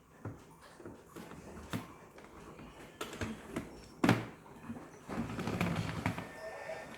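Scattered clicks and knocks of an object being handled, with one louder knock about four seconds in and a short rustle after it.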